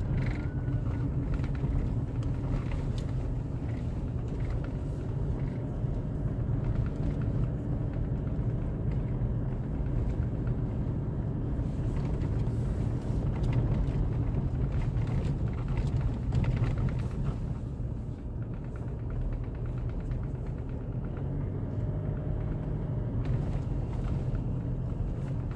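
Car driving along a road: a steady low rumble of engine and road noise, holding level throughout.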